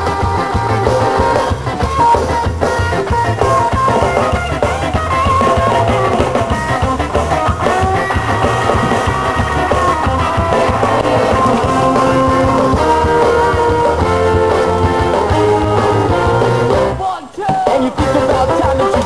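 Ska-punk song playing, with singing, guitar and a steady beat; the music drops out briefly near the end and comes straight back.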